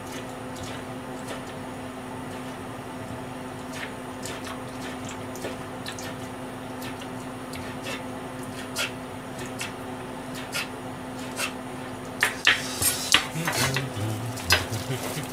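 Light clinks of kitchenware, a few scattered ones and then a quick run of clattering near the end, over a steady low hum.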